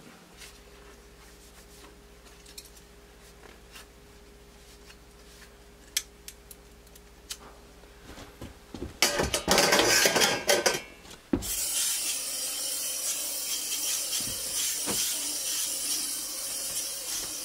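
Pots and dishes clattering and knocking for about two seconds. Then a steady hiss starts suddenly and keeps going. Before that there is only a faint hum with a few light clicks.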